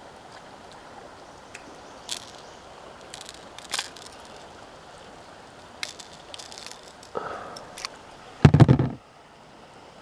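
Small metallic clicks and rattles of pliers working treble hooks free from a crankbait, over a steady soft water hiss, with a loud bump near the end.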